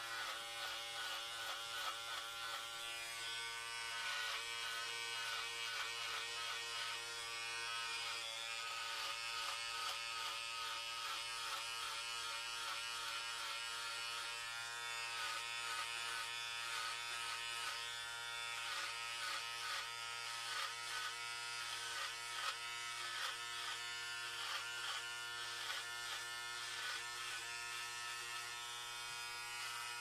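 Electric hair clippers cutting hair: a steady buzz whose tone flickers constantly as the blades work.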